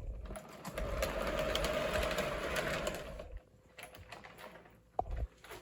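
Marx Sound-O-Power steam sound from a toy train running on three-rail track: a rapid chuffing hiss, chopped by a wheel spinning on the center rail, heard through the first few seconds before it drops away. A single sharp click comes near the end.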